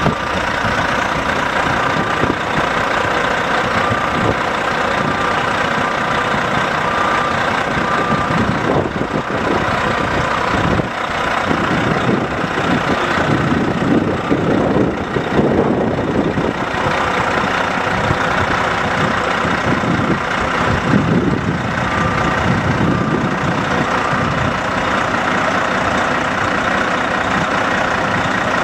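Kenworth heavy wrecker's diesel engine idling steadily.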